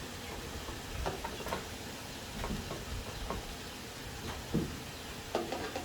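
Scattered light clicks and taps at irregular intervals, as of range hood parts being handled, over a steady low background.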